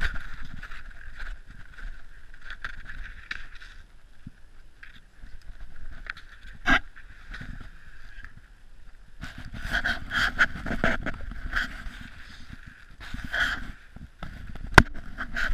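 Footsteps crunching through snow and clothing and gear rubbing against a body-worn action camera, with bursts of quick steps about ten seconds in and again near the end. Two sharp clicks stand out, one about seven seconds in and a louder one near the end.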